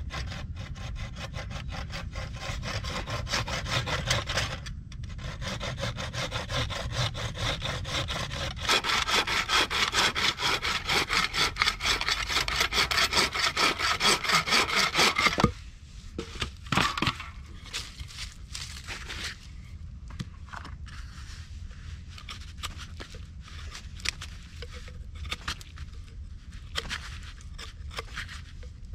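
Hand sawing through a wooden pole with a wooden frame bow saw, in rapid, even strokes that grow louder before stopping abruptly about halfway through. After that come quieter, irregular scrapes and taps of a hand tool on wood.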